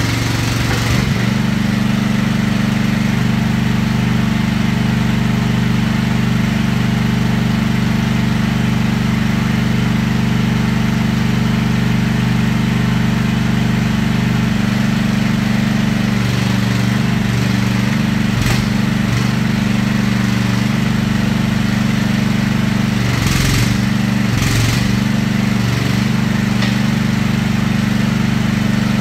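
AGT Industrial QK18RXS-C mini excavator engine idling steadily, with a few short knocks about two-thirds of the way through.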